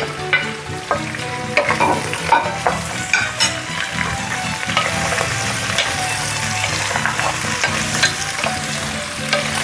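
Beef ribs frying in hot oil with freshly added onion and peppers, sizzling steadily in a pressure cooker pot while a wooden spoon stirs them, with repeated scrapes and knocks against the pot.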